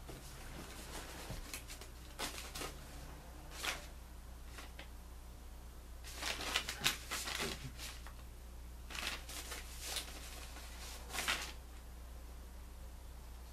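Paper rustling and light handling noises in short, irregular bursts, busiest about six to eight seconds in, over a steady low hum.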